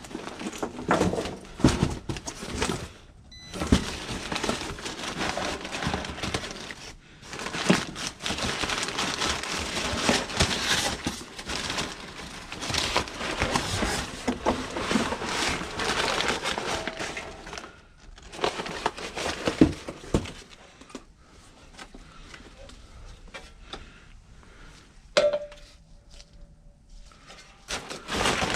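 Irregular crinkling, rustling and knocking of parts and tools being handled, in stretches with short pauses and several sharp clunks. A brief squeak comes near the end.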